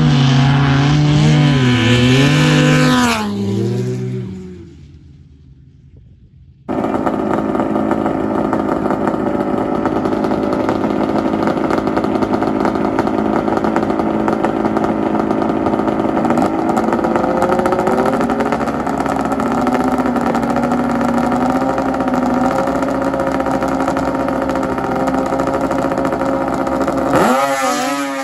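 Snowmobile engines. First a sled runs at full throttle down the grass track, its pitch dropping and wavering as it goes, then fading away. After a sudden change, two snowmobiles sit on the start line with engines held at raised revs; the revs climb a little partway through, and near the end both launch at full throttle with a sharply rising pitch.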